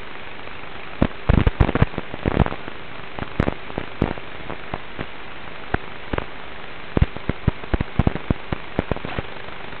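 Traxxas Slash 1/10-scale RC truck heard from on board as it drives over a rough dirt road: a steady hiss under irregular sharp clicks and knocks from the chassis and body rattling and striking over the bumps, densest about a second in and again near the end.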